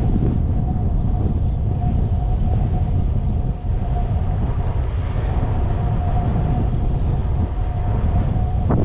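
Wind buffeting the microphone while cycling: a loud, steady low rumble, with a thin steady whine running through it.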